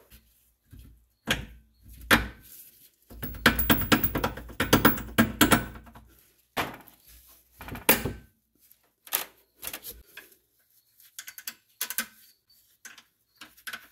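Metal knocks and clatter from a Megan Racing lower camber arm and its bolt being worked into the rear hub carrier of a BMW E46: a few separate knocks, a dense run of rattling about three to six seconds in, then scattered clicks.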